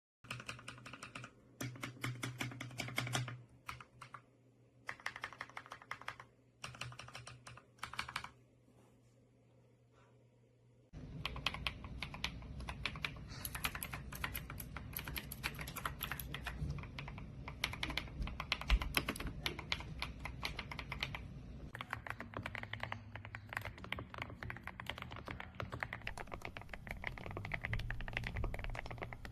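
Mechanical keyboard, partly fitted with EPOMAKER Creamy Jade linear switches, being typed on. There are a few short bursts of keystrokes, a pause of a couple of seconds, then steady fast typing from about eleven seconds in.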